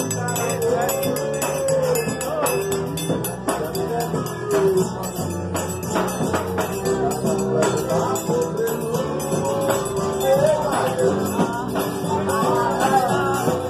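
Live band playing fast dance music on accordion, bass guitar and drum kit, with a busy jingling percussion beat and a singing voice.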